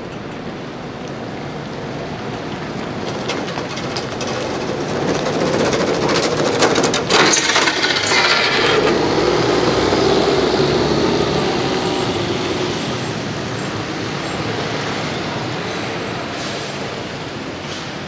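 City buses passing close on a wet, slushy street: engine drone and tyre noise grow louder, peak midway with a short hiss about seven seconds in, then fade away.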